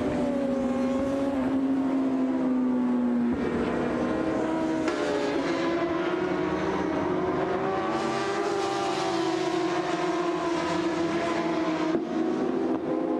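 Endurance racing motorcycles running at high revs on the circuit. The engine pitch rises and falls as they pass and change gear, and it shifts abruptly several times.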